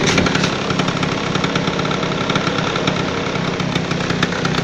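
Suzuki RC80 motorcycle engine running steadily at low speed with a fast, even pulsing.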